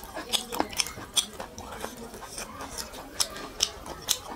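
Fingers squishing and mashing rice with curry on a plate: a dense, irregular run of short sticky clicks and smacks.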